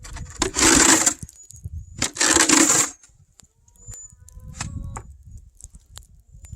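A snow shovel scraping and crunching through fresh snow in two strokes, each under a second, the second about a second and a half after the first, followed by lighter crunches and clicks.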